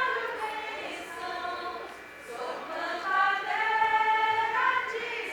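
A group of women singing a ciranda together without accompaniment, in long held notes with a brief pause between phrases about two seconds in.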